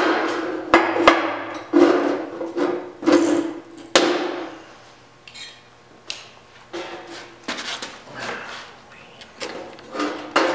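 Thin sheet-steel replacement body panel being cut out: a series of short, sharp metallic crunches, about one a second, with the panel rattling and ringing after each. They are loudest in the first four seconds, then become fainter and sparser.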